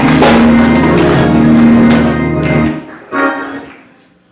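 Church organ playing sustained chords that stop abruptly a little before three seconds in, followed by one brief last burst, then the sound fades away.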